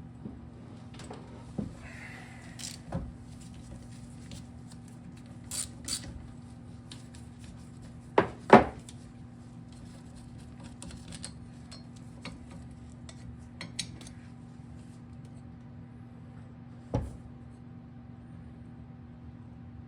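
Metal hand tools and small parts clinking and knocking against a Yamaha PW50's metal parts as the oil reservoir is unbolted, in scattered strikes. The loudest is a pair about eight seconds in and another single knock near the end, over a steady low hum.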